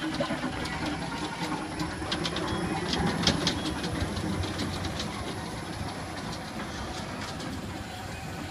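Tractor-shaped amusement-ride car rolling along its guide rail: a low rumble with a run of light clicks, fading as the car moves away.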